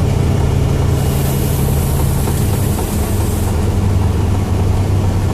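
Truck engine running steadily with a deep low hum, heard from inside the cab while driving. A soft high hiss rises over it about a second in and fades after a couple of seconds.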